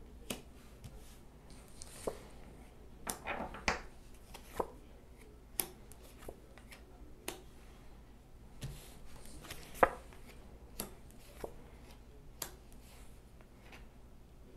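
Tarot cards being dealt one at a time onto a wooden tabletop: a series of light, sharp taps and card snaps, roughly one a second, with a quick flurry a few seconds in and one louder tap about two-thirds of the way through.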